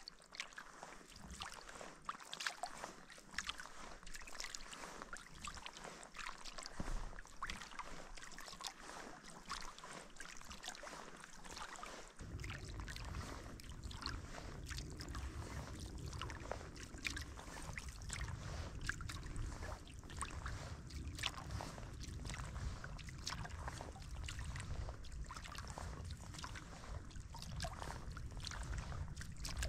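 Kayak paddle strokes on calm water: the blades dipping in and water dripping and trickling off them in a steady rhythm. A low steady rumble joins about twelve seconds in.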